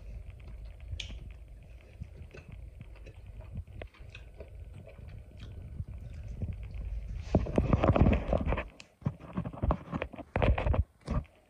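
A person chewing a buttered toast soldier dipped in soft-boiled egg yolk, close to the microphone: low, irregular chewing noise with small clicks. In the second half come louder, irregular rustles and knocks.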